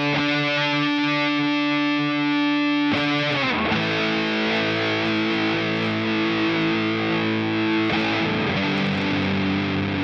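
Electric guitar played through a JOYO Hot Witch Big Muff-style fuzz pedal, ringing out long sustained fuzzy chords. The chord changes about three seconds in and again near the end.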